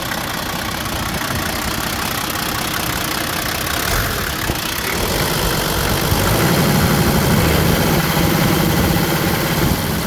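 Toyota Land Cruiser 60-series 2H inline-six diesel engine idling steadily, getting somewhat louder about halfway through.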